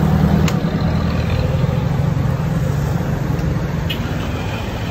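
Street traffic: the low, steady rumble of a motor vehicle's engine, strongest for the first two seconds or so and then easing off.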